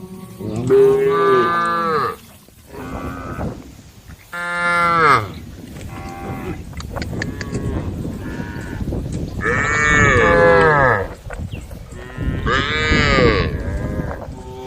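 Cattle in a herd mooing: a string of long calls, each rising and falling in pitch, the loudest about a second in, near five seconds, around ten seconds and near thirteen seconds, with fainter moos between them.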